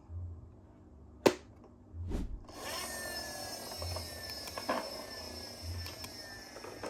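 A sharp plastic click and a knock, then the steady whirring rattle of a toy car's wheels rolling down a plastic slide, its pitch falling slightly.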